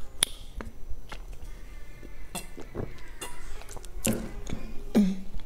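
Close-miked mouth sounds of chewing soft chocolate cream cake: wet clicks and smacks scattered through, with a brief hum falling in pitch about five seconds in.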